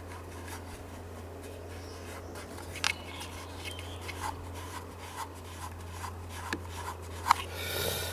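Hands handling parts on a chainsaw's clutch side: small scattered clicks and rubbing, with sharper clicks about three seconds in and again near seven seconds, over a steady low hum.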